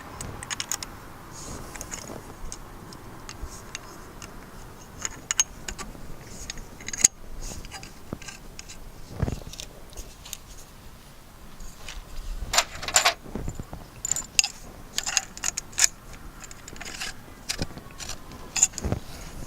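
Small metal hardware clinking and clicking as it is handled, in scattered sharp taps that come thicker and louder in the second half.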